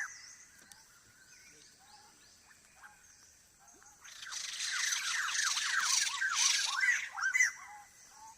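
Wild birds calling in a forest: a few faint, scattered calls at first, then from about four seconds in a loud burst of rapid, repeated harsh chattering calls from several birds that eases off near the end.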